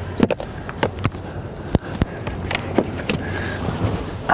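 A person climbing into an SUV's driver's seat through the open door: a string of irregular knocks and thumps with clothing and seat rustle, over a steady low hum.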